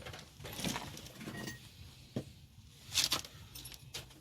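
Metal hand tools and engine parts clinking, a handful of short sharp taps, the loudest about three seconds in.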